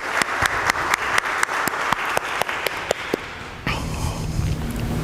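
Church congregation applauding, a dense patter of many hands clapping that dies away about three seconds in, leaving a steady low hum.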